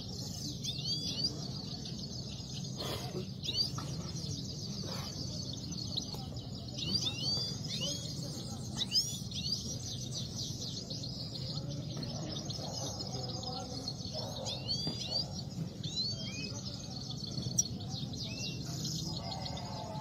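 Caged Himalayan goldfinches singing in competition: a continuous, rapid twittering song full of quick rising and falling notes.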